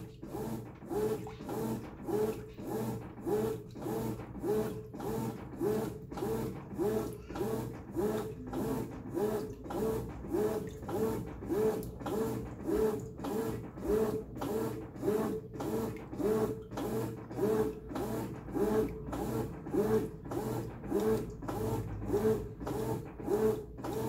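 Brastemp 14 kg top-load washing machine agitating: the motor and agitator reverse in short strokes about twice a second, each stroke a brief rising whir, in an even rhythm.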